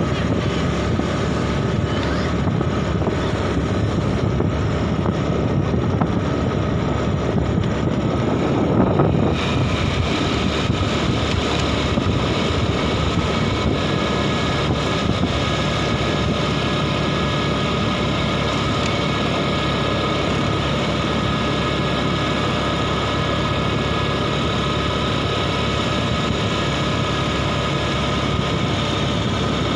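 Steady running noise of a motor vehicle on the move, engine and road noise together, with a short louder swell about nine seconds in, after which a brighter hiss and a few faint steady high tones join.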